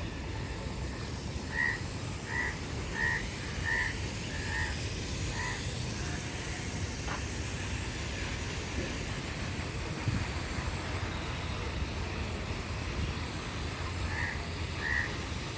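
A bird calling a short, repeated note, about six times at an even pace, then again several times near the end, over a steady low background rumble.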